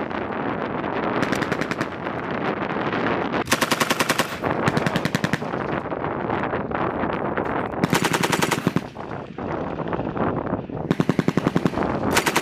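M240B machine guns firing in short bursts of rapid shots, each under a second long, five bursts in all, with a dense steady din between them.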